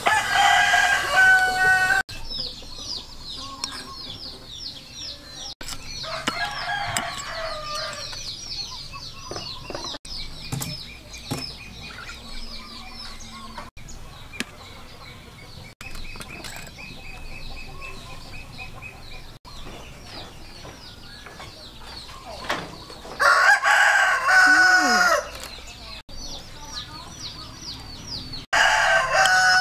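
Roosters crowing about four times, each crow a loud call of about two seconds. Between the crows there is a fast, high chirping.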